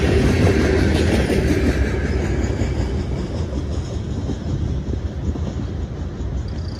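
Freight train's covered hopper cars rolling past, a low rumble of steel wheels on the rails that fades away steadily as the end of the train moves off.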